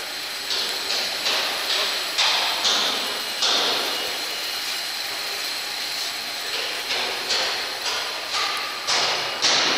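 Yarn doubling and winding machines running: a steady mechanical noise with a thin high whine. From about half a second in, short sharp hissing bursts come over it irregularly, roughly one or two a second.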